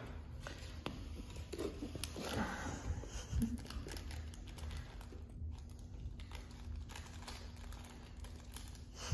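Welsh Terrier puppies playing with their toys: soft crinkling and rustling of a crinkle toy, with scattered light clicks and taps.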